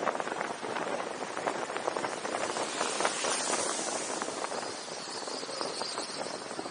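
Road and wind noise picked up by a camera mounted on the outside of a moving car, with a stream of small irregular clicks and crackles through it.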